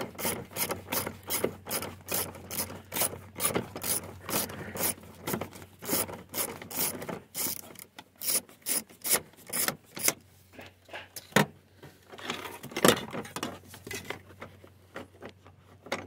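Ratchet wrench with a Torx socket clicking as it turns the seat belt anchor bolt loose, in quick runs of about three or four clicks a second. The clicks thin out after about ten seconds, with a couple of louder ones.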